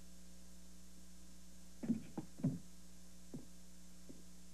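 A steady low hum, with three short thumps close together about two seconds in and two fainter ones later.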